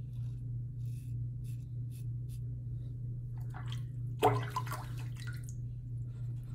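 A vintage open-comb double-edge safety razor scraping through stubble on the neck in several short strokes during the first couple of seconds, with a louder brief sound about four seconds in, over a steady low hum.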